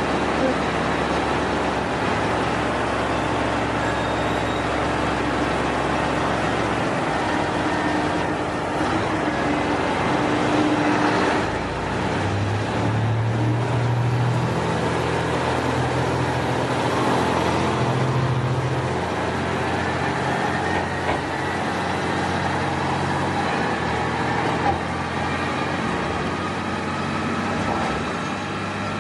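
Diesel railcar engine idling at the platform, then revving up about twelve seconds in as the train pulls out and runs off down the line, its engine note rising and shifting in steps.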